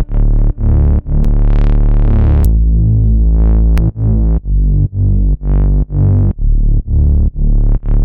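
Progressive house synthesizer chords and bass, pumping in level about twice a second in time with the beat, with the brightness swelling and fading. The playback stops abruptly at the end.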